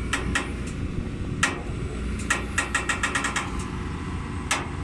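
Hitachi excavator's diesel engine running steadily, with sharp metallic clanks over it: a few single knocks, then a quick run of about eight in a second near the middle.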